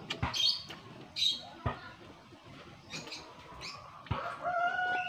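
A rooster crowing: one long call that starts near the end, over a few sharp clicks and short high chirps.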